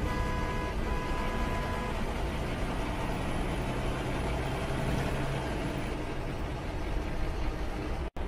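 City bus running, heard from inside the passenger cabin: a steady rumble of engine and road. A held tone sounds over it and stops about two seconds in, and the sound cuts out for an instant near the end.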